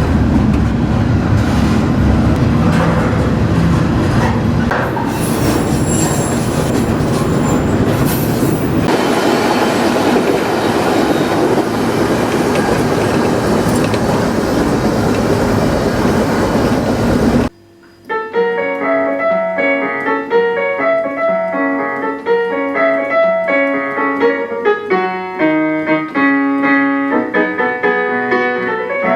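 Loud, steady rumble and rattle of a freight train on the move, with the sound changing about nine seconds in. A little past halfway it cuts off suddenly to solo piano music for the rest.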